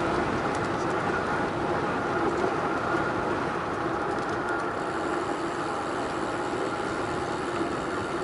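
Steady rush of wind on the microphone mixed with tyre hum from an electric bike rolling fast on pavement, at about 21 to 24 mph.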